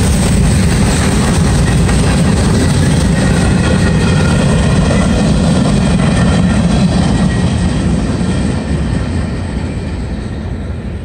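Freight train cars, covered hoppers and tank cars, rolling past at speed: a steady rumble of steel wheels on the rails. It fades over the last few seconds as the end of the train goes by.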